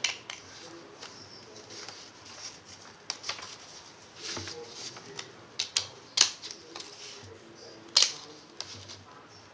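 Scissors cutting through a sheet of paper along a curved line: irregular sharp snips as the blades close, with paper rustling between them. The loudest snips come about 6 and 8 seconds in.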